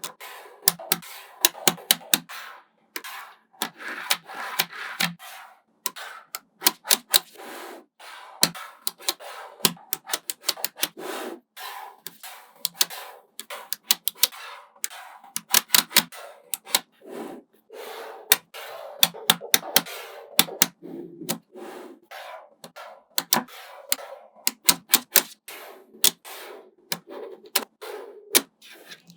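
Small magnetic balls clicking and snapping together in quick, irregular runs, with a softer rattle between the sharp clicks as they are pieced into a structure.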